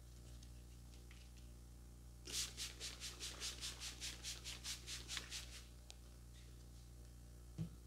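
Plastic trigger spray bottle pumped quickly, about fourteen short hissing sprays of water at about four a second. Near the end, a single short low thump.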